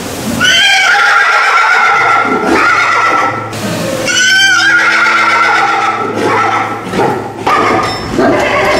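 Foal whinnying loudly over and over: two long, high calls, then several shorter ones, the separation calls of a foal left without its mare.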